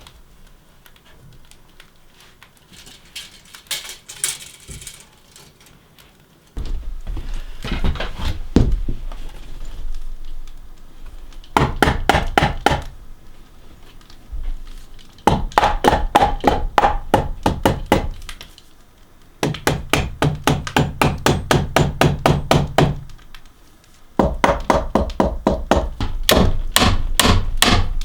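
Fasteners being driven into wooden stair framing: bursts of rapid, evenly spaced knocks a few seconds long, with pauses between them, starting about six seconds in.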